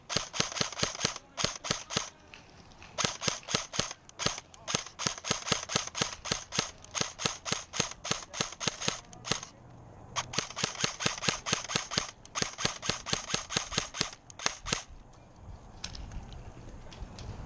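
Airsoft gun firing rapid, evenly spaced shots, about five or six a second, in three long strings with short breaks about 2 and 10 seconds in.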